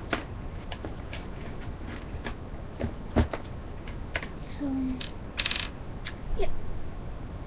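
Handling noise: scattered light clicks and taps of small objects being moved about, with one louder knock about three seconds in and a short rustle about five and a half seconds in.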